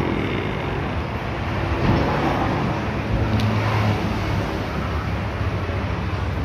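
Steady road traffic noise: a low engine hum under a wash of passing-vehicle and tyre noise.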